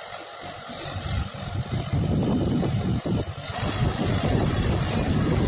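Mahindra 575 DI tractor's four-cylinder diesel engine running under load while pulling a tine cultivator through the soil. It grows louder about a second in and then holds steady.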